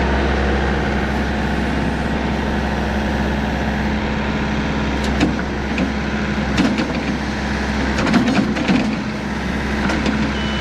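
Farm tractor engine running steadily with a deep hum, with scattered knocks and rattles from about halfway through.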